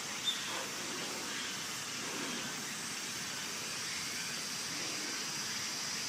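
Steady high-pitched hiss of outdoor background noise, with one brief sharp high chirp about a third of a second in.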